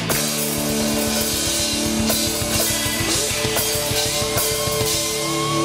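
Rock band playing: rapid drum kit strokes under held electric guitar and bass chords.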